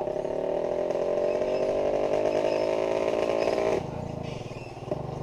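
Motorcycle engine running at steady revs, then dropping back to a lower, quieter idle about four seconds in.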